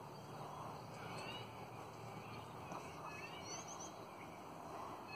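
Australian ringneck parrots (twenty-eights) chattering: short, high chirps sliding in pitch, in a few quick clusters, faint over a steady background hum.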